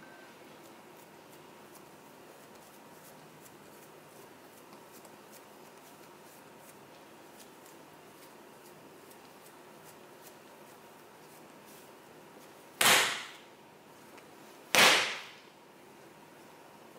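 Hands kneading dough on a silicone mat, with faint soft taps and rubs. Near the end come two loud, sharp slaps about two seconds apart, each dying away within half a second.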